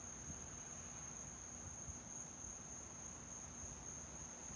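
Faint, steady high-pitched chorus of crickets.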